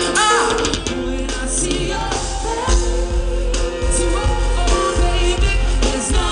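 Live reggae band music with singing, played loud over the festival's sound system; a heavy bass beat comes in about two and a half seconds in.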